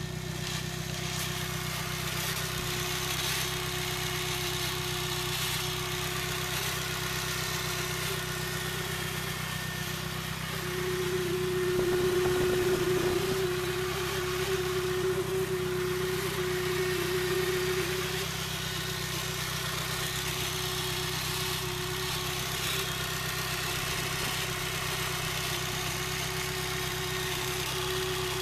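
Nissan SR20DET turbocharged four-cylinder engine idling, with a steady high tone running over the idle, a strange noise whose cause is unknown. The tone and the engine grow louder for several seconds around the middle, then settle back.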